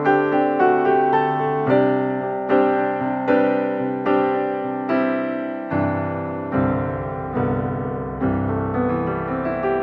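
Background piano music, slow, with a new note or chord struck about every three-quarters of a second.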